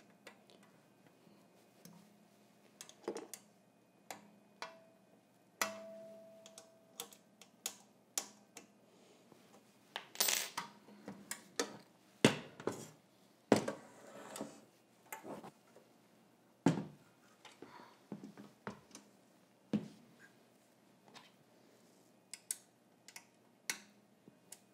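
Metal hardware on a quilting-frame carriage being handled: scattered clicks and taps as the wheels and screws are tightened, a brief metallic ring about six seconds in, and a run of louder knocks between about ten and fourteen seconds as the carriage and frame are moved.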